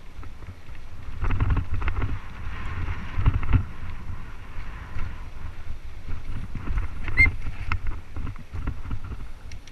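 Mountain bike rolling over a rough dirt and rock trail: wind rumbling on the camera's microphone, with frequent knocks and rattles as the tyres hit bumps and a hiss of tyres on loose sand in the first few seconds. A short squeak about seven seconds in.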